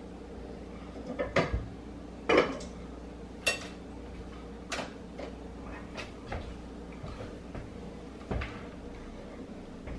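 Serving spoon clinking and scraping against a plate and a rice cooker's pot as rice is dished up: a scattering of short clinks and knocks, the loudest about two and a half seconds in, over a faint steady hum.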